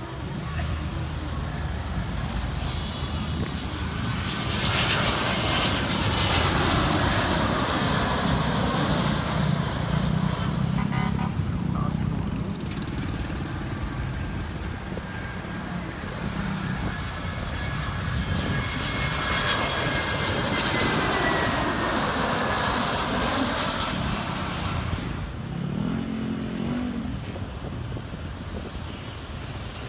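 Two jet airliners passing low overhead on landing approach, one after the other. Each one's engine noise swells and fades, with a whine that falls in pitch as it goes by.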